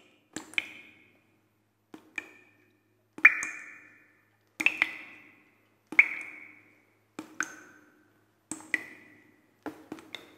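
Sparse ringing plinks at changing pitches, about one or two a second at uneven spacing. Each has a sharp start and a short fading ring.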